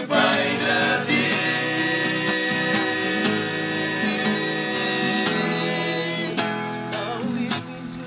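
Music with acoustic guitar and singing.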